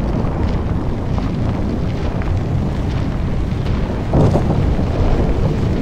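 Deep, steady rumble of a high-rise tower collapsing in an implosion demolition, with a louder surge about four seconds in.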